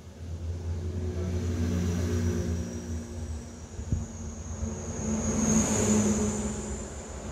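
A motor engine drones steadily, swelling to its loudest about six seconds in, with a thin high whine over it. A single light knock comes about four seconds in.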